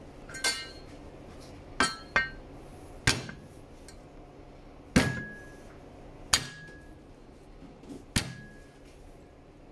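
Garlic cloves being smashed under the flat of a cleaver on a plastic cutting board: about seven sharp whacks at irregular intervals, the loudest about halfway through. Several whacks leave a brief metallic ring from the blade.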